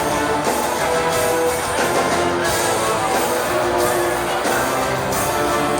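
Band music led by strummed guitar, playing an instrumental introduction with no singing.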